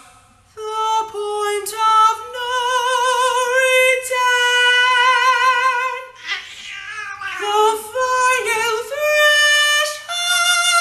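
High, wordless falsetto singing in an operatic style: long held notes with strong vibrato that step upward in pitch, broken by a stretch of sliding, wavering notes in the middle.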